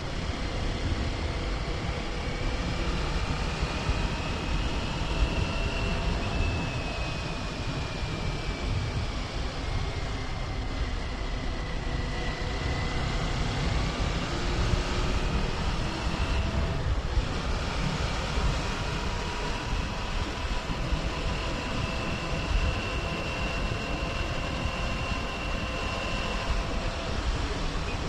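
Kawasaki Ninja 400's parallel-twin engine running on the road, its pitch slowly rising and falling with speed, under a heavy rush of wind on the microphone.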